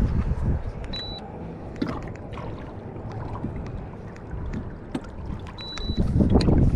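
Two short high electronic beeps from a handheld trolling-motor remote, one about a second in and one near the end, over scattered small clicks and knocks. A louder low rumble comes in just before the end.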